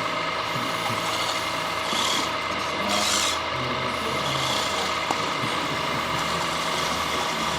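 Radio-controlled model construction machines running, with a steady layered electric whine and short hisses about two and three seconds in.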